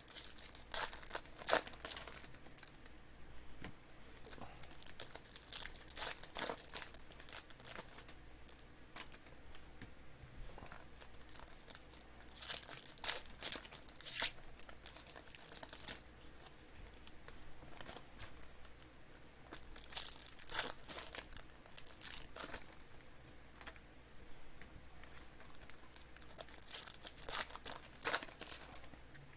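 Trading card pack wrappers being torn open and crinkled, with the rustle of cards being handled, in bursts every several seconds as pack after pack is opened.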